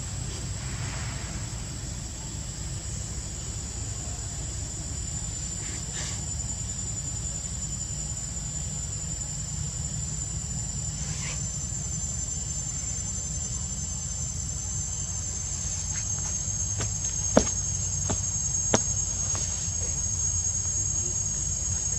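Insects trilling steadily at a high pitch, with a second, slightly lower trill joining about halfway through, over a constant low rumble. A few sharp clicks come near the end, two of them standing out.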